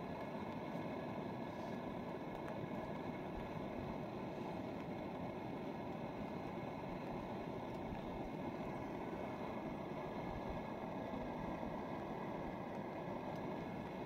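Portable gas canister stove burner running steadily under a pot of steaming food.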